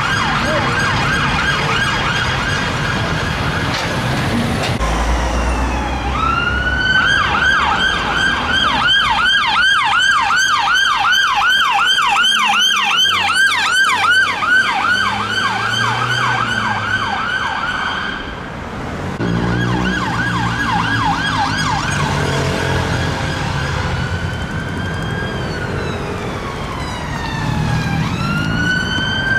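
UK emergency vehicle sirens, from a police car and then an ambulance on a call, switching between a slow rising-and-falling wail and a fast yelp of about three sweeps a second. Near the end a long slow wail falls and then climbs again.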